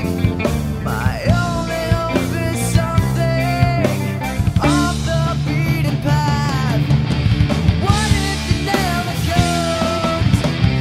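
Background music: a rock song with a steady drum beat, bass and a melodic lead line.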